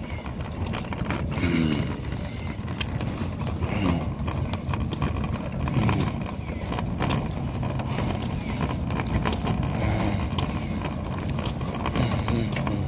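Muffled low rumble with clothing rubbing and scraping against the phone's microphone, scattered clicks throughout, and faint voices a few times.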